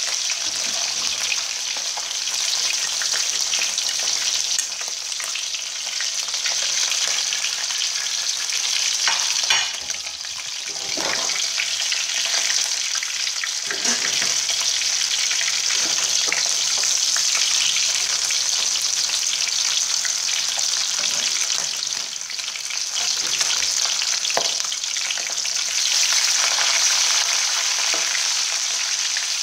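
Whole scored fish sizzling steadily as they fry in shallow oil in a pan, with a few light knocks in the middle.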